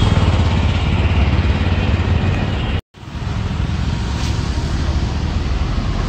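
Road traffic: a steady noise of passing vehicles with a low rumble. It drops out to silence for a moment about three seconds in, then carries on.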